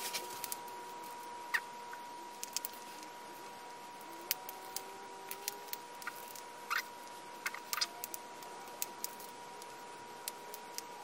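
Small wooden clicks and knocks, irregular and scattered, as a wooden puzzle box is handled, pressed and jiggled in an attempt to open it. A faint steady high-pitched tone sits under them.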